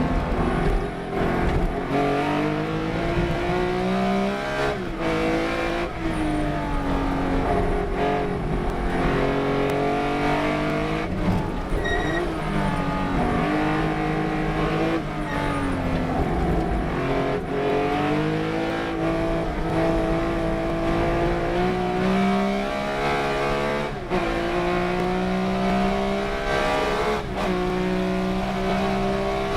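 Race car engine run hard: its pitch climbs and falls repeatedly, with brief dips at the gear changes.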